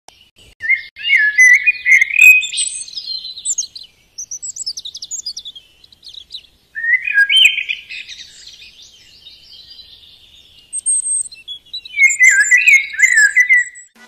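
Songbirds singing: three long warbling phrases, with short quick chirps and a few high notes between them.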